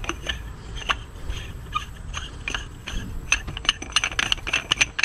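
Oil catch can being screwed back onto its housing by hand: irregular light clicks and scraping, coming thicker in the last couple of seconds.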